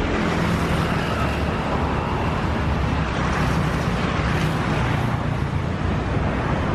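Steady outdoor street ambience: a low, constant rumble of road traffic.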